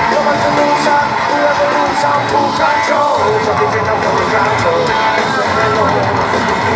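Rock band playing live at a loud, steady level, heard from among the audience.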